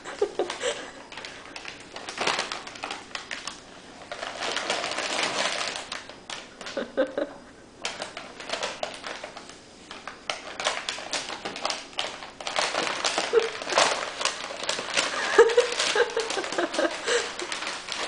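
Brown paper bag crinkling and rustling in irregular bursts of crackles as a cat wriggles inside it and pushes it across a tile floor. It is loudest in the second half.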